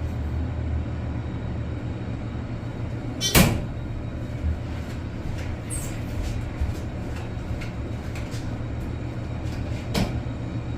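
Steady low hum of an elevator cab, with one loud, short, sharp sound about three and a half seconds in and a softer click near ten seconds.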